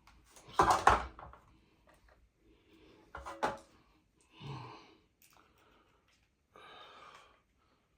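A man breathing hard with effort, with soft exhales and a short grunt, while he works overhead; a loud bump about a second in and a sharp click about three and a half seconds in come from handling the fan parts.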